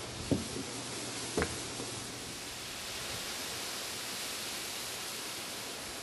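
Wind rustling through tall reeds, a steady hiss, with two dull thumps in the first second and a half.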